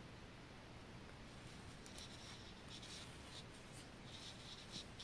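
Faint rustling strokes of wool yarn being pulled through knitted stitches while a seam is sewn up by hand, several of them in the second half.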